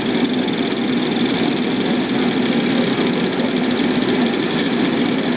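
Several go-kart engines idling together on the starting grid, an even overlapping drone with no revving.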